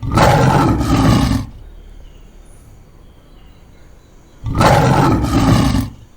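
Lion roaring twice, each roar lasting about a second and a half, with a pause of about three seconds between them.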